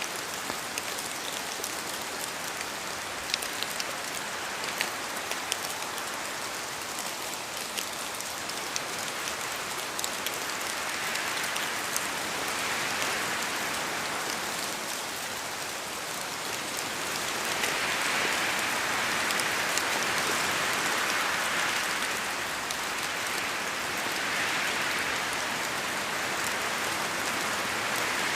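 Steady rain in a forest, with sharp individual drops falling from the trees onto leaves. A rushing hiss swells and fades several times in the second half, likely wind gusting through the wet trees.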